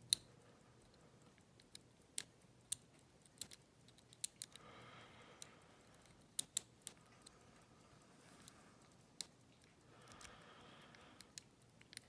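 Quiet, irregular metallic clicks and ticks of a hook pick and tension wrench working the pins of a brass ERA euro cylinder lock, a few clicks sharper than the rest.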